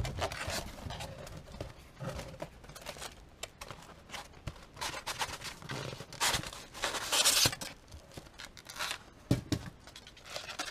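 Paper and cardboard packaging rustling and crinkling as it is handled in a cardboard box, with a loud rustle about seven seconds in and a few knocks near the end.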